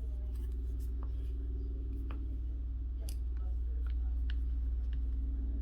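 Short, light scrapes and clicks of a card squeegee being pushed across a plastic film screen protector on a phone to press out air bubbles, roughly once a second, over a steady low hum.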